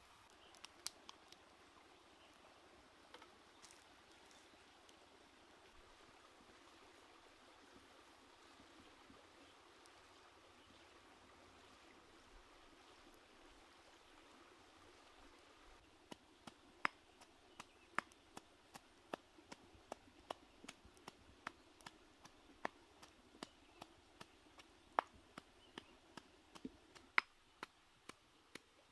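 Squid skewers grilling over hot coals: a faint, even sizzle, then from about halfway a run of sharp, irregular crackles and pops from the fire and the cooking squid.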